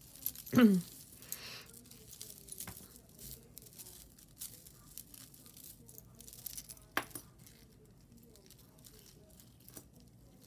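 Faint scattered clicks and clinks of costume jewelry being handled, beads and metal clasps knocking together, with one sharper click about seven seconds in. A short hum of voice just under a second in.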